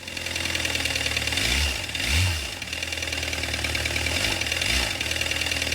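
2013 Volkswagen Jetta TDI's 2.0-litre four-cylinder turbodiesel running, louder than normal and with its oil warning light on, which points to an oil problem. It is briefly revved twice, about two seconds in and again near the end.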